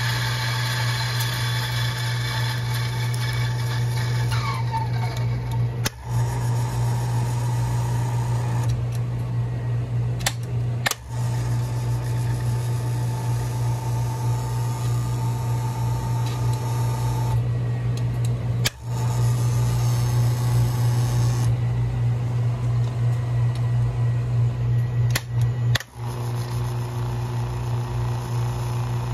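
Electric motor of an espresso grinder running with a steady low hum, broken off briefly a few times.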